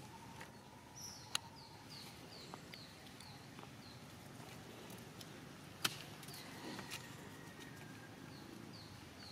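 Quiet outdoor ambience with bouts of short, high chirps that fall in pitch, about three a second. Two sharp clicks stand out, about a second in and a little past halfway.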